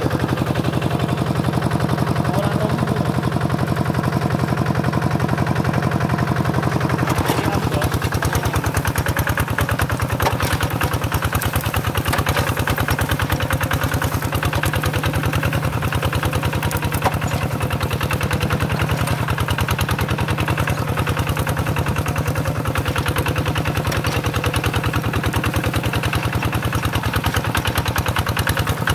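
Single-cylinder diesel engine of a two-wheel hand tractor running steadily under load as the tractor's cage wheels work through paddy mud, with a fast, even beat of firing strokes.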